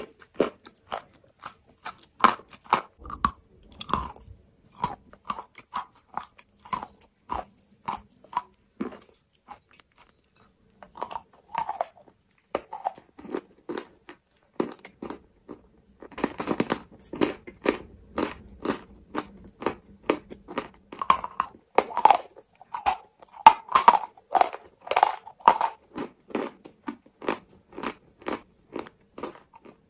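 Close-miked biting and chewing of hard white chalk cubes: a run of sharp, dry crunches, one after another. The crunching pauses briefly about ten and fifteen seconds in, then comes thicker and faster.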